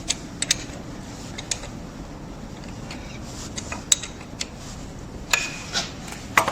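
Irregular metallic clicks and clinks of an Allen key working the socket-head bolts of a universal drive, the bolts being tightened little by little. There are about a dozen sharp ticks, spread unevenly.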